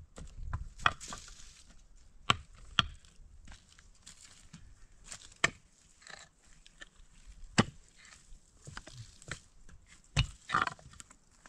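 Irregular sharp blows of a hand tool, about seven of them spaced one to three seconds apart, the kind of striking heard when chopping or hammering at wood or stone.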